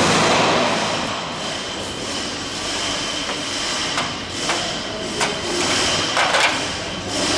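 Pneumatic air drill running briefly at the start, then fading into a steady hiss. Several sharp metallic clicks follow as clecos and pliers are handled on the aluminium wing skin.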